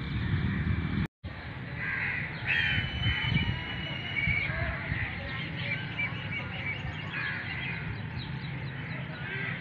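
Crows cawing, with other birds calling in short repeated notes, over a low steady rumble. The sound drops out completely for an instant about a second in.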